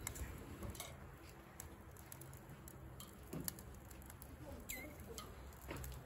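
Light scattered clicks and taps of bamboo skewers and metal tongs being set down on the wire grate of a charcoal kettle grill, with one short high chirp near the end.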